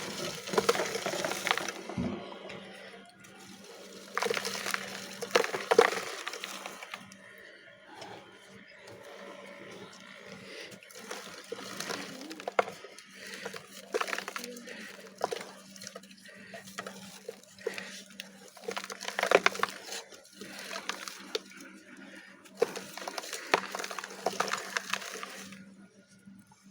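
Dry Multani Mitti (fuller's earth clay) chunks crumbling and breaking, a dusty, crackly crunching that comes in several bursts of small cracks with softer pauses between.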